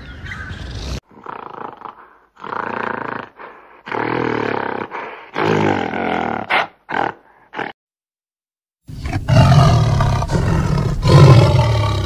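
A string of short pitched calls from a mountain gorilla. After a brief silence, about nine seconds in, a Malayan tiger gives a loud, drawn-out growling roar.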